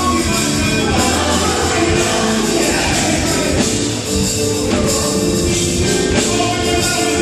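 A live gospel vocal group singing with a band behind them, drums among the instruments, amplified through PA speakers. The music is loud and steady throughout.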